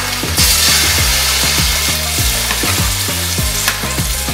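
Salmon fillets sizzling in hot ghee in a stainless steel pan as more fillets are laid in; the sizzle grows louder about half a second in. Background music with a steady beat runs underneath.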